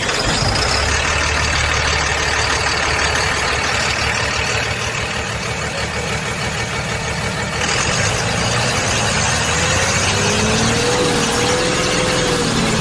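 Tata Signa BS6 truck's diesel engine idling steadily after starting on its repaired self-starter motor.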